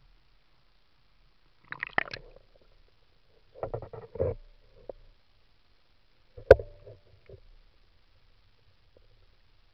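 Waterproof action-camera housing being dipped into a stream: muffled splashing and gurgling as it goes under, then dull knocks of the housing underwater, the sharpest about six and a half seconds in.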